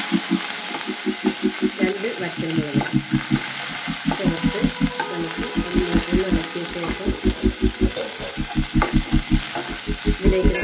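Shallots, curry leaves and dried red chillies sizzling in hot coconut oil in a nonstick pan, stirred with a metal spoon: the frying of a Kerala-style tempering. A fast low pulsing, about five or six beats a second, runs underneath.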